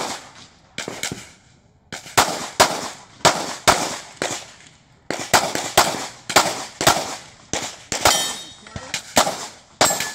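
Handgun shots fired rapidly, mostly in quick pairs, in strings broken by short pauses: a lull about a second in and another a little before the middle.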